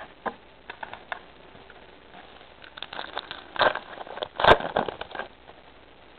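Crinkling and rustling of a foil Pokémon booster pack wrapper and trading cards being handled, with a few light clicks at first and a denser crackly stretch through the middle, loudest twice about three and a half and four and a half seconds in.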